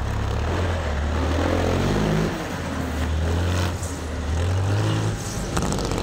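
Rally truck's diesel engine revving hard on a dirt track, its deep note climbing and falling back twice. A couple of short, sharp cracks come in the second half.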